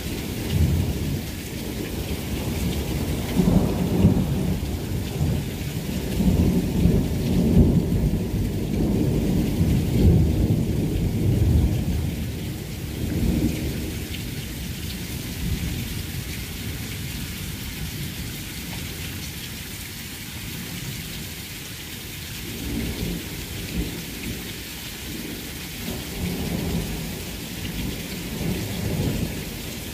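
Heavy rain pouring down, with water streaming off the roof edge, and thunder rolling low underneath, loudest in the first half and swelling again near the end.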